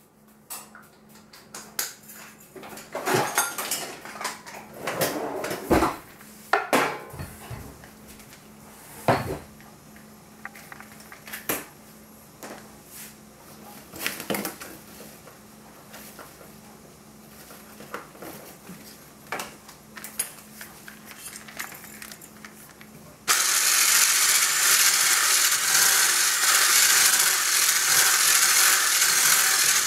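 Scattered clinks and knocks of kitchenware, then a hand-held immersion blender switches on about 23 seconds in and runs with a loud, steady whirr, mixing cake batter in a metal saucepan.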